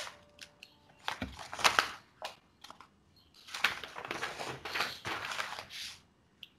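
Rustling, crackling handling noise close to a microphone, in two bursts: one about a second in and a longer one from about three and a half to six seconds.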